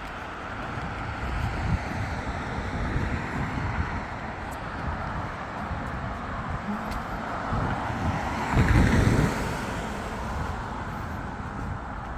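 Road traffic: a steady hum of passing cars, with one vehicle going by close about nine seconds in, its tyre and engine noise swelling and then fading.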